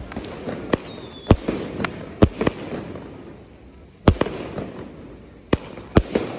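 Fireworks bursting close by: about eight sharp bangs at uneven intervals, with a lull of a second or so in the middle and fainter crackling between the bangs.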